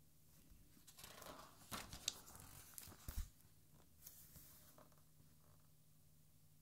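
A page of a large hardcover art album turned by hand: a papery swish and rustle with a couple of sharp crisp ticks, ending in a soft thud as the page is laid flat about three seconds in.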